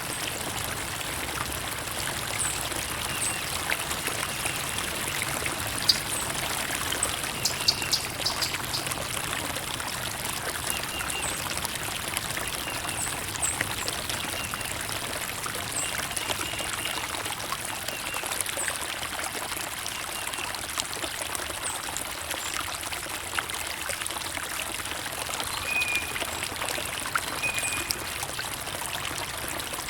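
Running water trickling and pouring steadily, like a small stream, with brief high bird chirps now and then.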